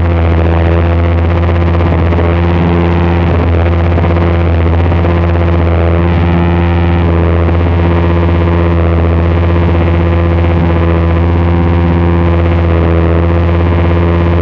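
Tubbutec Wired Heart synth played through a snake plant and a chain of effects pedals: a loud, steady noise drone with a deep hum at the bottom, layered steady tones above it and a haze of hiss.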